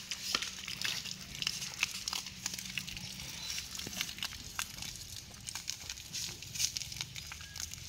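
Weak trickle of water from a garden hose splashing on an elephant being washed and spattering onto the wet ground: an even hiss with many irregular crackles and clicks.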